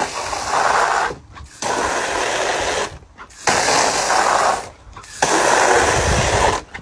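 Jet of water from a garden hose spray nozzle hitting a hard plastic kiddie pool, a rushing spatter in four spells of about a second each with short gaps between.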